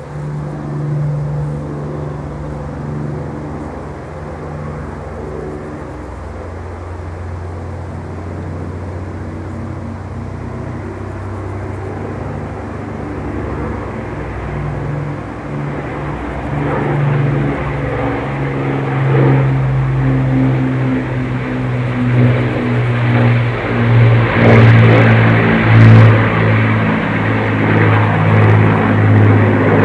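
Avro Lancaster bomber's four Rolls-Royce Merlin engines running in a steady low drone during a flypast, growing louder over the second half as the aircraft comes closer.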